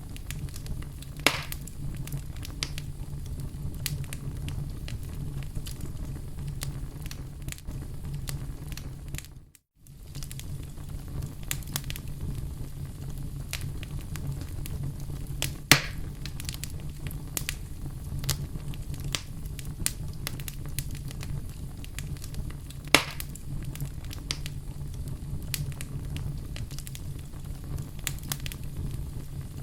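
Wood fire in a fireplace crackling steadily over a low rumble, with frequent small snaps and three louder pops. The sound cuts out for a moment about ten seconds in.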